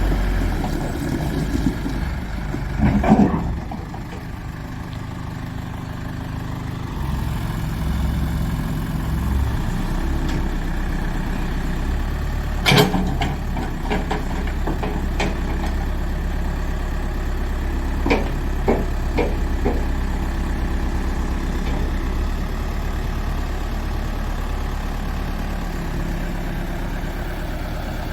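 New Holland LB 95 B backhoe loader's diesel engine running steadily at idle, its pitch shifting a few times. Several sharp knocks sound over it, about three seconds in, near the middle, and a few in quick succession about two thirds through.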